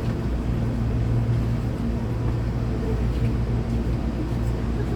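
Interior of a commuter train standing at a station: a steady low electrical hum from the car's equipment with a faint background wash, and no traction motors running.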